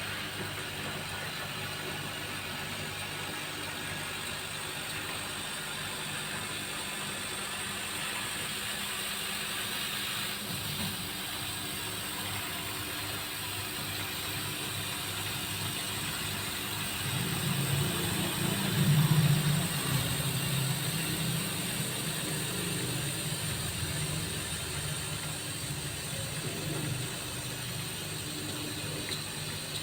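CO2 CNC laser cutter running: a steady mechanical whir of the machine's motors and fans, growing louder for a few seconds a little past the middle.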